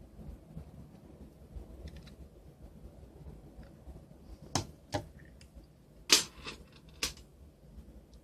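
Sharp plastic clicks and snaps from the Palm Treo 755p's housing being handled and pried apart: four distinct clicks in the second half, the loudest about six seconds in, with a few faint ticks before them.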